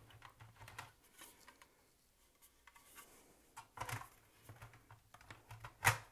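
Plastic top housing of a Nespresso Vertuo being fitted onto the machine by hand: scattered light scrapes and clicks of plastic on plastic, with a sharper click near the end.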